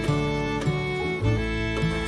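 Instrumental background music with string instruments.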